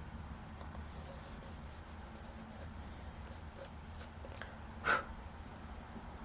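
Graphite pencil sketching on sketchbook paper: a run of faint, short, scratchy strokes over a low steady hum, with one louder short sound about five seconds in.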